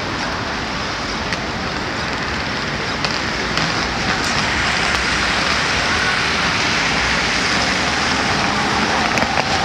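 Steady hiss of a rainy city street: rain and traffic on wet asphalt, growing a little louder about four seconds in. A few footsteps on the wet pavement click near the end.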